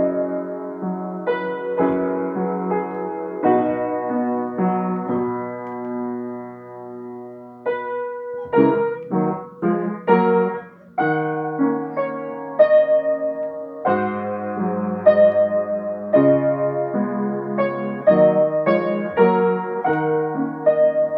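Solo piano playing a slow melody over sustained chords and bass notes.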